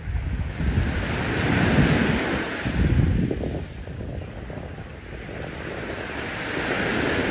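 Waves washing up on a sandy beach, the surf hiss swelling about two seconds in and again near the end, with wind buffeting the microphone mostly in the first few seconds.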